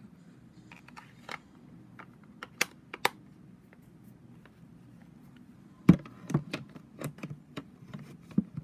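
Light taps and clicks of craft supplies being handled and set down on a work table: a few scattered taps in the first three seconds, then a busier run of taps and knocks in the last three seconds, the sharpest near the start of that run.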